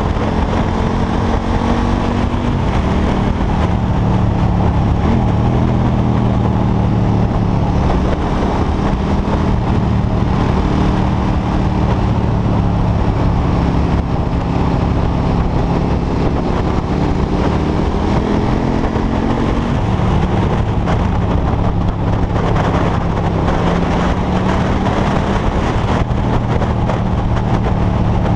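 KTM 1290 Super Duke R's 1301 cc V-twin running under way at a steady cruise, its pitch holding mostly level with a few slow rises and falls as the throttle changes, over steady wind rush on the microphone.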